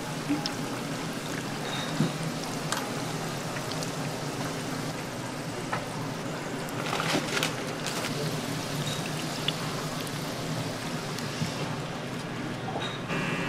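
Fish cakes deep-frying in a tray of hot oil: a steady, rain-like sizzle of bubbling oil, with a few sharp clicks of metal tongs against the stainless-steel fryer.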